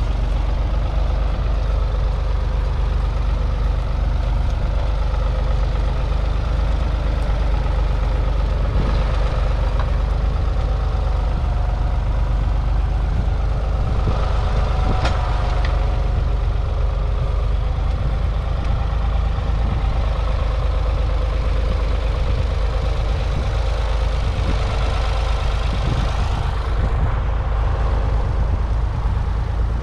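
1978 Ford County 4600 Four tractor's 3.3-litre three-cylinder diesel engine running steadily under load, pulling a two-furrow mounted plough, with a few short knocks.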